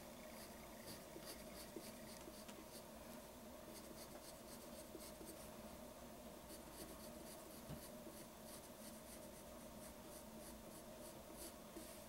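Faint scratching of a pencil on paper: short repeated strokes in quick runs as a line is sketched and darkened.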